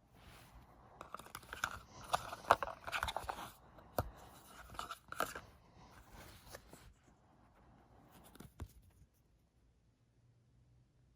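Crinkly plastic toy packaging being handled and torn open, a dense run of crackles and sharp clicks that dies away after the first several seconds.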